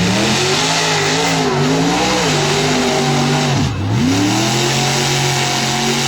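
Mud-bogging truck on paddle tires running hard at high revs, its engine note wavering. About two-thirds of the way through the revs drop sharply, then climb back and hold high, over a loud hissing rush.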